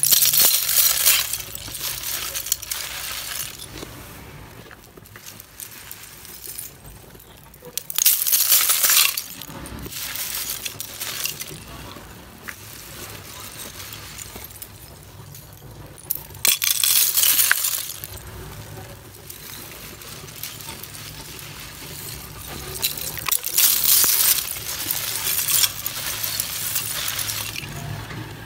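Dry, brittle flakes of roasted multani mitti (fuller's earth clay) being stirred and dropped back onto a heap of flakes, clinking and rattling against each other. The clatter comes in four loud spells several seconds apart, with quieter rattling between.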